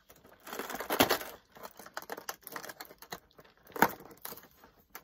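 Crinkling and tearing as a cardboard advent calendar door is pushed open and the small toy inside is taken out, picked up close by a clip-on microphone. It is irregular and crackly, with two sharper tears, about a second in and at about four seconds.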